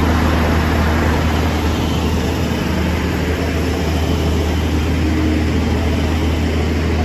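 City bus engines running low and steady as the buses move through floodwater, under a constant hiss.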